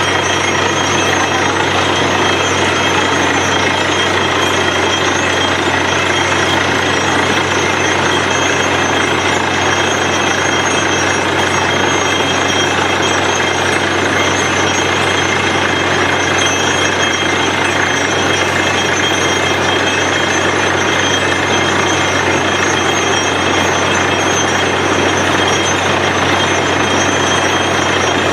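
Borewell drilling machine running, a loud, steady machine noise with a constant low hum that does not change.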